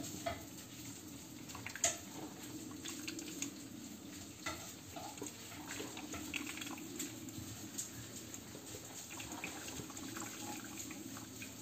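Vestel drip coffee maker with built-in grinder running a water-only rinse cycle: hot water gurgling and dripping through into the carafe as it steams, a steady sound with scattered small pops and clicks.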